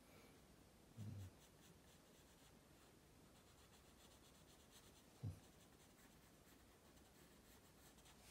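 Faint pencil strokes scratching on paper during sketching, with two soft low thumps, about a second in and about five seconds in.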